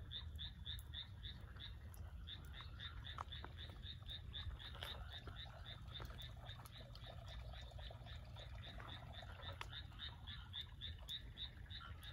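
Frogs calling from flooded rice paddies: an even run of short, high calls, about four a second, over a fainter chorus, with a low steady rumble underneath.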